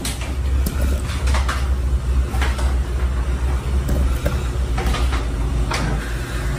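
Pieces of chopped onion dropped by hand into a pot of hot broth, giving several short plops and splashes, over a steady low rumble.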